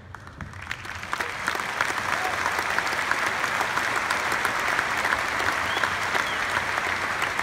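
Large arena audience applauding, many hands clapping at once; it swells over the first second or two and then holds steady.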